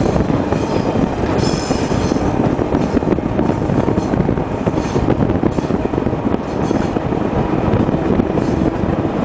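Passenger train running on its track, heard from inside the carriage: a steady loud rumble of wheels on rail, with brief high wheel squeals about one and a half seconds in and again near the end.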